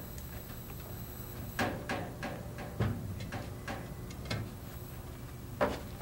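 Small plywood pieces knocking and clattering as they are handled and fitted together: a run of light wooden knocks for about three seconds, then a single louder knock near the end, over a steady low hum.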